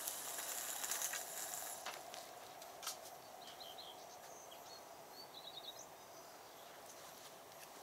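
Fishing line hissing off a spinning reel's spool as a just-cast bottom rig flies out, fading over the first two seconds. A single click about three seconds in, then two short bursts of bird chirps.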